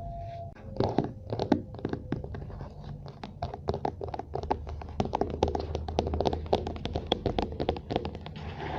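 Dense, irregular tapping, clicking and scratching close to the microphone, several sharp clicks a second.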